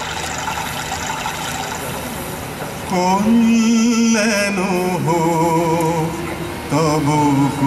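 Live stage music: an instrumental accompaniment, then about three seconds in a solo voice starts singing a melodic line with vibrato over a low sustained drone. The voice breaks off briefly near the end and comes back in.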